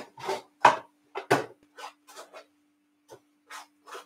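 Kitchen utensils and containers being handled: a run of short scrapes and knocks, about two or three a second, growing fainter, over a faint steady hum.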